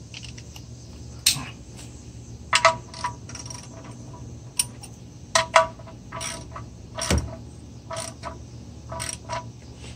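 Irregular metal clinks and clicks of a 19 mm socket and ratchet wrench working on the oil drain plug as it is fitted and tightened, with a duller knock about seven seconds in.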